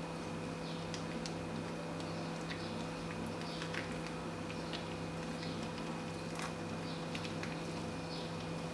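Soft clicks and rustles of hands rolling a filled rice-paper wrapper on a plastic cutting board, over a steady hum that pulses faintly about twice a second.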